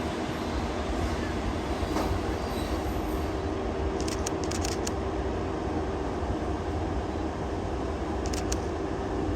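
EF81 electric locomotive running with a steady electric hum over a low rumble. A few faint high ticks come about four seconds in and again near the end.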